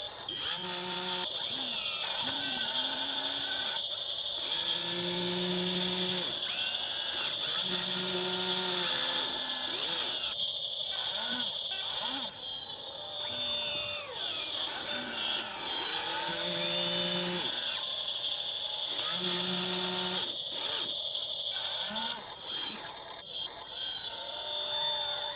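Small electric motors and gearboxes of a toy RC excavator whining at a steady high pitch as it digs, with short lower-pitched hums of about a second recurring every few seconds as the arm and boom move.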